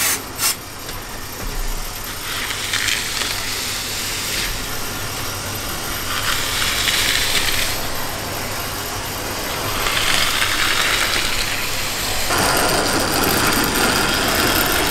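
OO gauge model Class 29 Bo-Bo diesel locomotive running on the layout: its electric motor and gearing give a steady, rattly whir. There are a couple of clicks at the start, and the sound grows louder about twelve seconds in.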